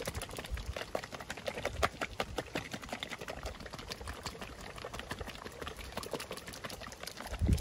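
A Pucchin Purin pudding cup shaken hard by hand to break the pudding up, the pudding sloshing and knocking inside the sealed plastic cup in rapid, uneven strokes. A low thump comes near the end.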